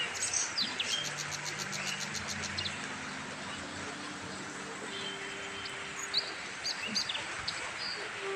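Birds chirping and twittering, with a fast trill near the start, over a steady background hiss. A low hum from a battery e-rickshaw's electric motor rises in pitch in steps as it pulls away.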